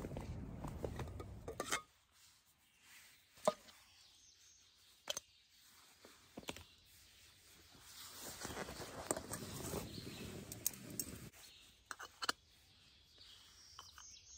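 A backpacking canister stove, gas canister and small cook pot being handled and fitted together: a few sharp clicks and knocks, with soft rustling in between. A stretch of steady noise cuts off about two seconds in.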